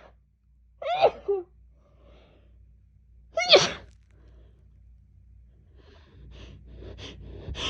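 A woman sneezing in a fit: one sneeze about a second in and another about three and a half seconds in, then short breaths coming about three a second and growing louder near the end. She puts the sneezing down to fall allergies.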